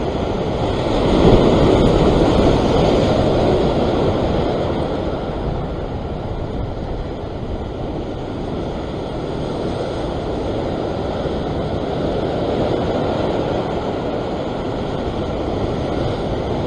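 Ocean surf washing and churning against the rocks below, with wind buffeting the microphone. The wash swells louder for a couple of seconds about a second in, then settles to a steady rush.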